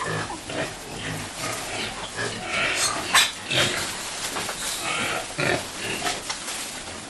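Pigs and piglets grunting and squealing excitedly as they are given fresh grass to eat.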